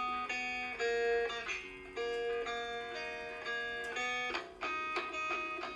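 Background music on a plucked guitar: a run of separate notes, each starting sharply and then dying away.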